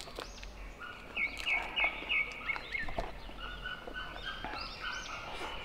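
Small birds chirping outdoors, many short high calls including a quick run of four chirps about a second in, with a few scattered clicks and taps.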